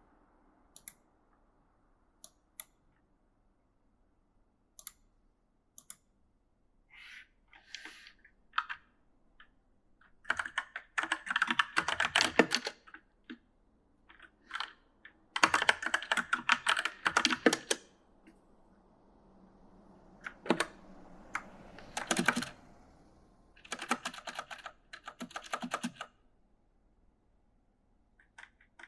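Typing on an E-Element mechanical gaming keyboard. For the first several seconds there are only a few scattered single key clicks. After that come irregular bursts of rapid keystrokes with short pauses between them.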